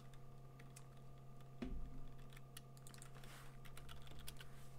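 Computer keyboard keys clicking in quick, irregular strokes, mostly in the second half, with one soft thump about a second and a half in, over a steady low electrical hum.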